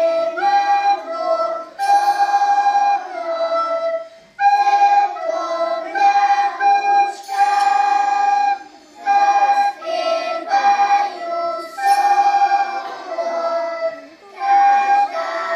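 A class of young children performing a simple song on just two notes, the melody stepping back and forth between a higher and a lower pitch in short phrases with brief pauses between them.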